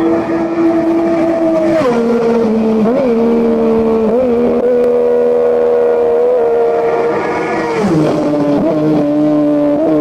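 Racing motorcycle engine at high revs, a sustained pitched note that drops to a lower steady pitch about two seconds in and again near eight seconds, with brief wobbles in between.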